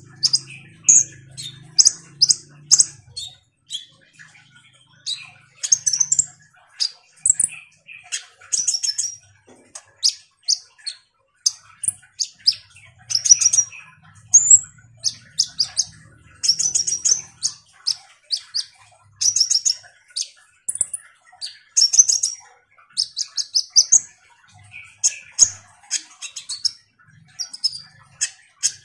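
Caged male kolibri ninja (Van Hasselt's sunbird) singing: rapid, high, thin chirps and short buzzy trills in quick bursts, with brief pauses between phrases.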